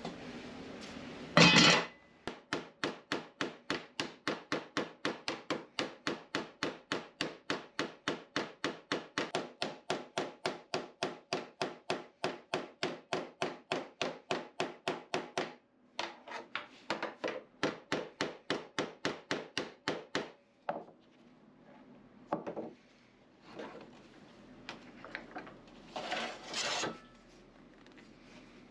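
A clank, then a hand tool working steel plate in quick even scraping strokes, about four a second, pausing briefly and going on for about another five seconds before stopping. A few scattered scrapes and clinks follow.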